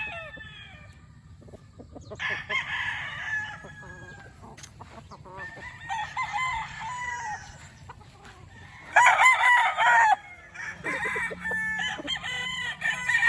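Several young gamefowl roosters (stags) crowing one after another, with overlapping crows from different birds; the loudest crow comes about nine seconds in.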